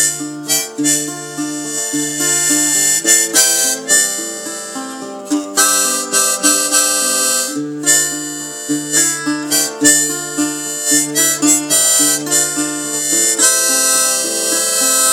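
A Hohner diatonic harmonica, played in a neck holder, plays a melody of held notes over an acoustic guitar accompaniment: an instrumental harmonica break with no singing.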